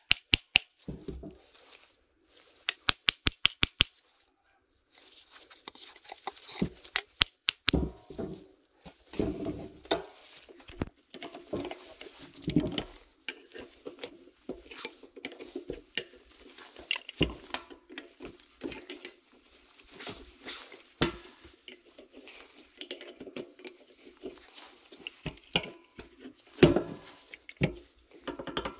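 Metal tools and alternator parts clinking and clattering as the alternator is worked on by hand: a quick run of sharp clicks near the start, then irregular clinks and knocks.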